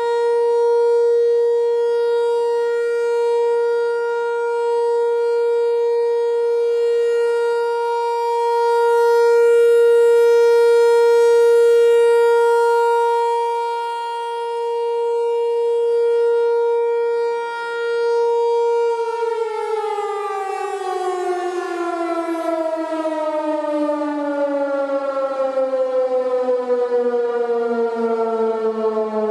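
American Signal T-128 Tornado electromechanical siren sounding its steady alert tone, which swells and fades in loudness. About two-thirds of the way through it shuts off and the pitch falls steadily as the rotor winds down, ending the alert.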